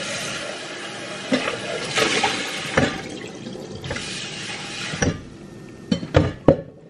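Kitchen noise while cooking: a steady hiss that stops about five seconds in, then a few sharp knocks of cookware.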